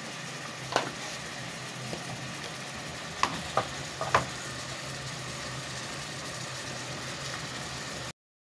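Sharp clicks and knocks of a plastic salt-container lid and a wooden spoon against a stainless steel cooking pot: one about a second in, then three close together around four seconds in, over a steady low hum. The sound cuts off suddenly near the end.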